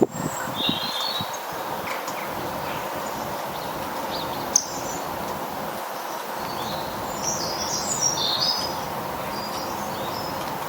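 Small garden birds giving short, high chirps and twitters in scattered bouts, busiest about seven to eight and a half seconds in, over a steady background hiss. A sharp click at the start and another about four and a half seconds in.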